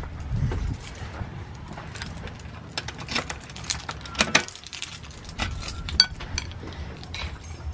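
A bunch of keys jangling, with sharp metallic clicks as a key is worked into the lock cylinder of a metal-framed glass door to unlock it.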